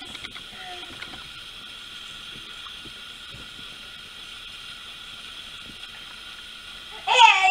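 A steady faint high-pitched hum with a few soft clicks and a brief faint baby vocalisation about half a second in; about seven seconds in, a baby breaks into a loud, high-pitched squeal with gliding pitch.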